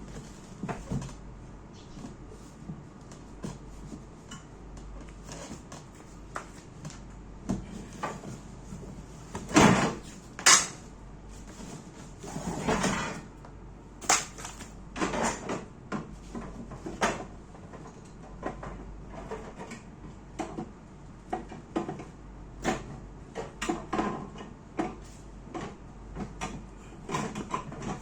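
Irregular knocks, clicks and clatter of small hard objects being handled and set down, with two louder knocks about ten seconds in; no motor running.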